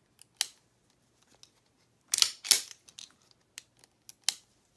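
Sharp metallic clicks and clacks from a CZ75 SP-01 pistol's steel action being worked by hand after reassembly: a single click, then a loud double clack a little past two seconds in, and another sharp click near the end.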